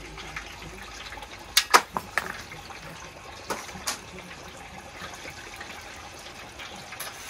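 Hot peanut oil bubbling and sizzling in a turkey-frying pot. A handful of sharp metal clanks about one and a half to four seconds in, as a wire lifting hook knocks against the pot and the turkey rack.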